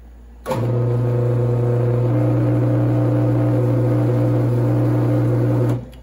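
Benchtop milling machine's electric spindle motor switched on, running with a strong steady hum for about five seconds, then switched off.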